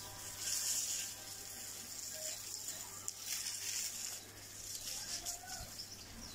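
Water spraying from a garden hose, a steady hiss with light pattering as it lands on the ground.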